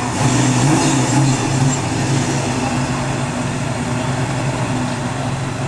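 Car engine held at steady high revs while the rear tyres spin in a smoky burnout. It is loudest for the first two seconds, then eases to a steady run.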